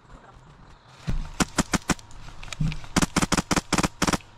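Airsoft guns firing a quick irregular string of single shots, sharp cracks several a second, starting about a second in.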